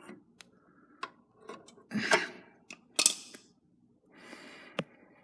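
Irregular metal clicks and short scrapes of channel-lock pliers gripping and working a grease gun coupler stuck on a grease fitting, with a sharp click near the end.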